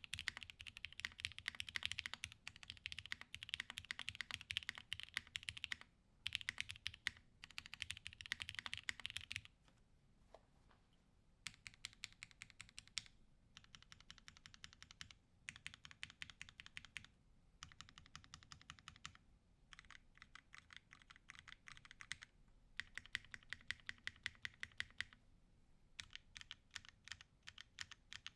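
Typing on a plateless-build 7V mechanical keyboard with H1 60g switches fitted with Cherry top housings and GMK keycaps. Fast continuous typing for about the first nine seconds, then short bursts of a second or two with brief pauses between them.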